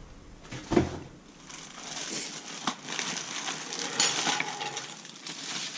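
Clear plastic packaging bag crinkling and rustling as the foam wing parts inside it are handled, with a few sharp clicks and knocks along the way.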